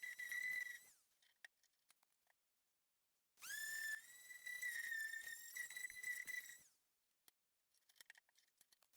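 High-pitched whine of a small electric power tool's motor, used to clean up the repaired cricket bat. It runs out about a second in, spins up again with a quick rising whine a few seconds later, holds steady for about three seconds and winds down. Faint scratching follows near the end.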